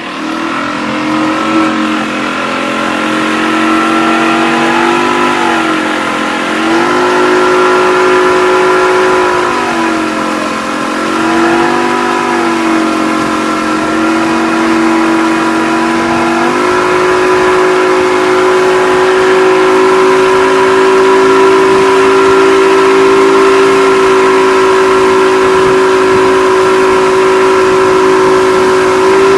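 Motorboat engine under load towing a tube: it speeds up at the start, its pitch dips twice as the throttle eases off, and from about halfway it runs steady at a higher pitch, over a constant hiss.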